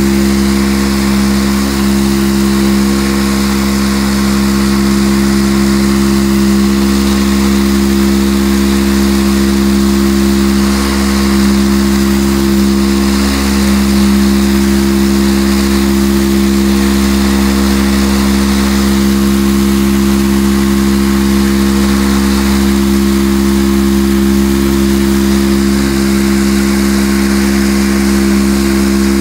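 Mirka random orbital sander running steadily against a car's steel door and quarter panel, with a constant motor hum under the hiss of the abrasive disc, sanding body filler off down to bare steel.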